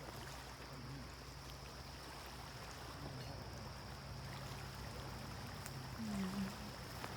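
Faint, steady outdoor background noise: an even hiss with a low hum under it, and a brief faint low sound about six seconds in.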